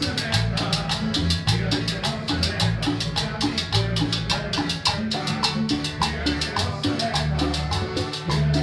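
Live Latin American popular music played by a small band: acoustic guitar, electric bass and keyboard over a quick, steady percussion beat.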